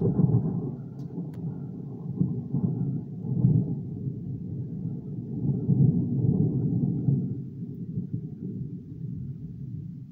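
Rolling thunder: a long low rumble that starts suddenly, swells several times and fades near the end.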